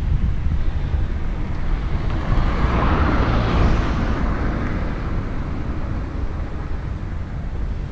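A vehicle passing, its noise swelling to a peak about three to four seconds in and fading, over a steady low rumble of wind on the microphone.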